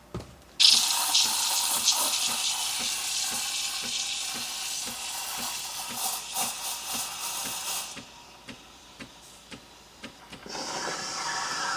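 Espresso machine steam wand hissing as it steams Oatly Barista oat milk in a jug. The hiss starts suddenly about half a second in, with a faint regular ticking underneath, and stops around eight seconds in. A few clicks follow, then a softer steady hiss starts near the end.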